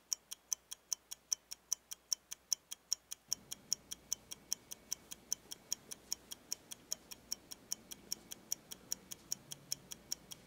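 Wristwatch ticking rapidly and evenly, about five sharp, high-pitched ticks a second, with a faint low room hum coming in about a third of the way through.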